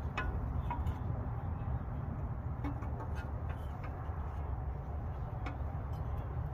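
Scattered light clicks and ticks of a hand tool, a ratchet or wrench on metal, as bolts are worked on the underside of a GM 5.3 V8, over a steady low rumble.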